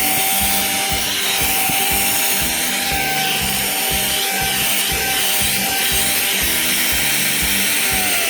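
Cordless electric air duster running: a small high-speed motor whining steadily with a hiss of rushing air, over background music with a steady beat. Near the end the whine starts to fall in pitch as the motor winds down.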